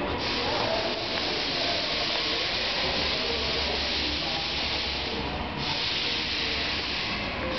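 A steady hiss that stops about five and a half seconds in, over a low background hum.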